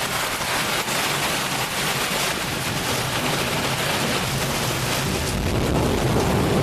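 Heavy rain pouring down in a thunderstorm, a steady hiss of rain on the ground and running floodwater. A low rumble builds near the end.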